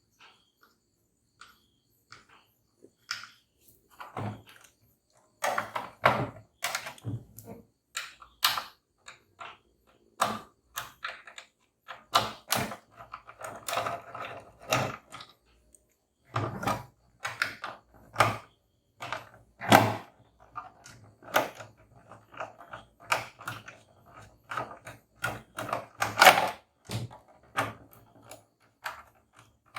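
Irregular clicks, taps and knocks of hand tools and hard parts being handled as a Singer electric sewing machine is taken apart. Sparse at first, then frequent from about four seconds in.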